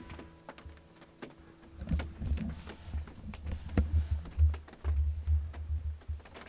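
An acoustic guitar chord rings and fades over the first second. From about two seconds in come irregular low thumps and clicks of the camera being handled and grabbed close to the microphone, loudest near the end.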